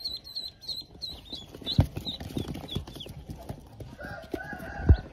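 Pekin ducklings peeping in rapid, high-pitched chirps that thin out after about two seconds, with a few dull knocks, the loudest just before the end. A lower, longer call from another bird begins about four seconds in.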